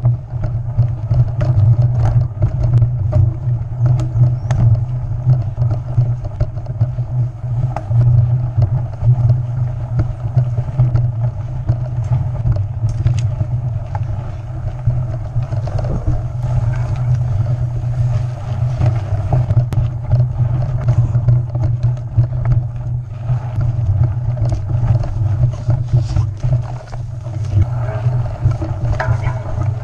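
Wind rumbling on a handlebar-mounted camera's microphone while a mountain bike rolls down a dirt trail, with the bike's frame and parts rattling and clicking over the bumps.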